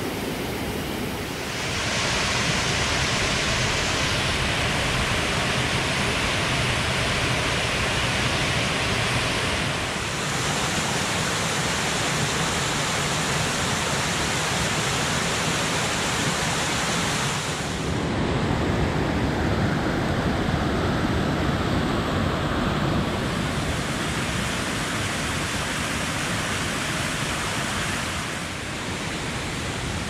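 Steady rushing of a waterfall and cascading mountain stream, its tone shifting several times where the shots change.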